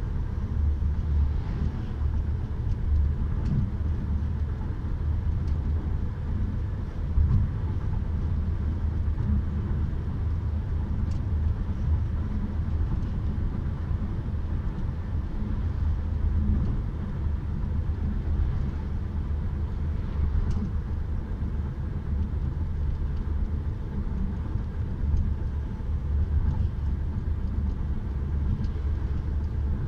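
Steady low rumble of road and engine noise inside a moving car's cabin, mostly tyres on the road surface.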